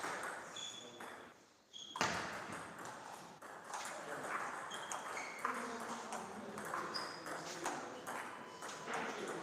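Table tennis balls clicking off bats and the table in quick, irregular strokes, some with a short high ring, with one loud strike about two seconds in after a brief lull.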